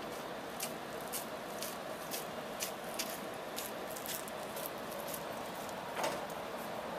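Tram approaching slowly round a curve, with a steady running hum. Sharp regular ticks come about twice a second, and one louder knock comes about six seconds in as the tram draws close.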